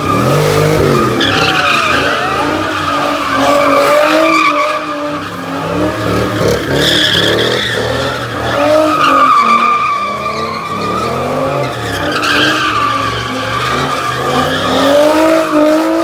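Cars doing donuts: engines revving up and down again and again over continuous tyre squeal.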